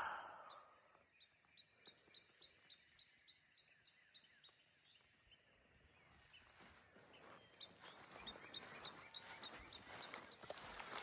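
A brief rustle at the start, then a faint bird song: one short chirped note repeated about three times a second, in two runs. Footsteps through grass grow louder in the second half.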